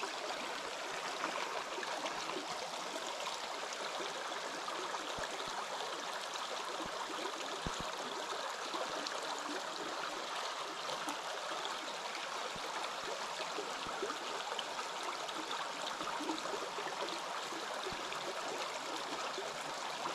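Small rocky pocket-water stream running steadily over stones and riffles, a continuous rushing, gurgling flow.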